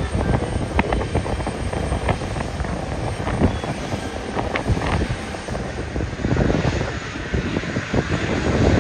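Jet airliner's engines running as the plane passes the airport, a steady low-heavy noise throughout.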